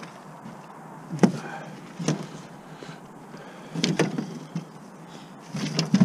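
A landed musky flopping in a landing net on the floor of a fishing boat, giving about four irregular thumps and knocks against the deck.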